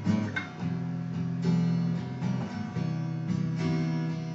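Guitar strumming chords in a song's instrumental passage, no singing.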